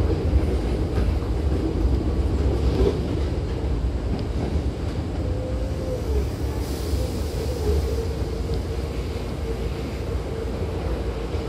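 Hankyu 7000-series electric train (set 7011F) running, heard from inside the car by the doors: a steady low rumble with a slightly wavering hum, and a brief hiss about seven seconds in.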